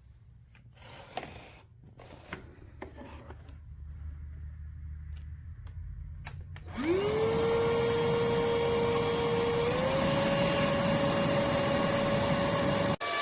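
Light clicks and handling knocks, then about seven seconds in the motor of an iwoly C150 cordless stick vacuum spins up with a quick rising whine and runs steadily with loud airflow. Its pitch steps up slightly about three seconds later, and it cuts out for an instant near the end.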